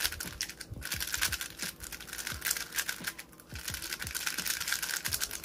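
Freshly lubricated MoFang Jiaoshi MF3RS2 3x3 speedcube being turned by hand for its first turns after lubing: a dense, irregular run of quick plastic clicks and clacks as the layers snap round.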